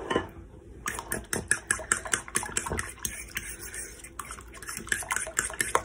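Fork beating eggs and heavy cream in a ceramic baking dish: quick, uneven clicking of the fork against the dish, with the liquid sloshing.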